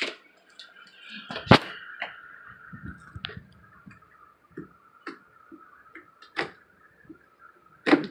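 Handling noises while sticky homemade slime is worked by hand: scattered sharp knocks and clicks, the loudest about a second and a half in and another near the end, over a faint steady hum.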